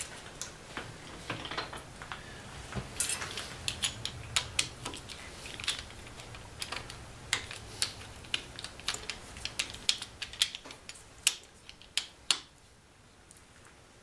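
Irregular metallic clicks and clinks as a T-handle hex key loosens and re-tightens the screws of a lathe's parting blade holder and the blade is slid further out, over a faint low hum. The clicking stops about twelve seconds in.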